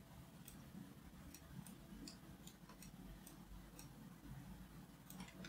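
Near silence: faint, irregular clicks of a computer mouse, about two or three a second, over a low room hum.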